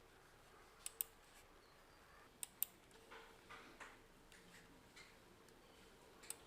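Computer mouse clicking: three quick double clicks, well spaced apart, over faint room tone.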